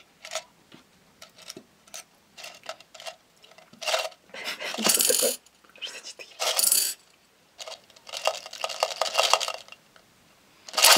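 Tic Tac mints rattling out of their plastic box and clattering onto the bottom of a stainless steel pot. Scattered single clicks at first, then several short bursts of quick clicking from about four seconds in.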